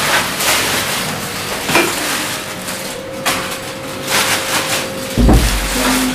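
Chicken frying in oil in a wok, a steady crackling sizzle, with a heavy thud about five seconds in.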